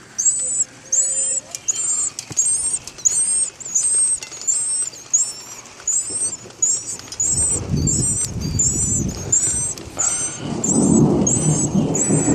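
Baby birds in a birdhouse giving high, hungry begging chirps, evenly repeated about three every two seconds. About seven seconds in, a low rumbling noise joins them.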